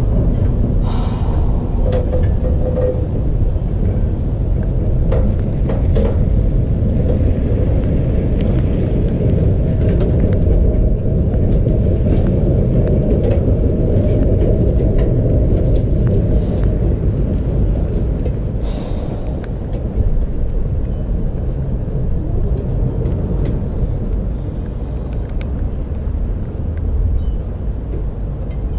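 Vintage tram, Trondheim Sporvei no. 6, rolling slowly across the depot tracks: a steady low rumble with a few faint clicks, easing off a little toward the end.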